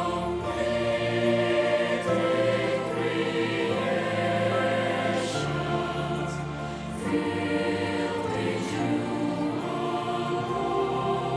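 Choir singing a gospel song in sustained multi-part harmony, with the held chord changing about seven seconds in.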